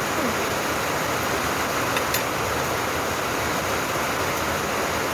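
Heavy rain pouring down, a steady loud hiss of falling water loud enough to drown out normal talk.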